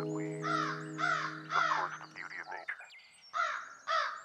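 The song's final sustained chord rings out and fades, stopping about two and a half seconds in, under a run of short, harsh animal calls with small bird chirps high above them. The calls carry on after the chord is gone.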